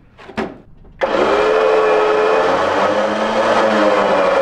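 A short knock, then, starting suddenly about a second in, a motor running steadily under load with a droning whine while hauling a line hitched to the truck.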